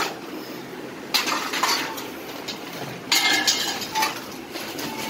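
Metal plates clattering and clinking against each other and being set down, in two bursts about two seconds apart.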